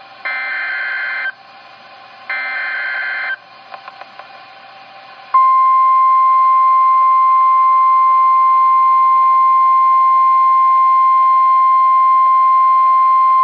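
NOAA Weather Radio Emergency Alert System signal through a weather radio's speaker: the last two of the three buzzy digital SAME header bursts, each about a second long and a second apart. About two seconds after them the steady single-pitch warning alarm tone starts and holds, announcing a severe thunderstorm warning.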